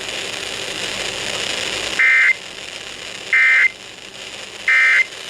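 Three short, loud bursts of Emergency Alert System digital data tones, about 1.3 seconds apart: the End of Message code that closes the alert. They sound over a steady radio hiss.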